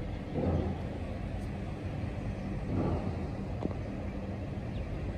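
Distant road traffic: a steady low rumble with a faint hum.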